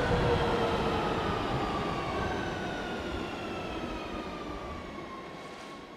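Metro train running noise from inside the carriage: a steady rumble and hiss with an electric motor whine that falls slowly in pitch as the train slows. The whole sound fades away steadily.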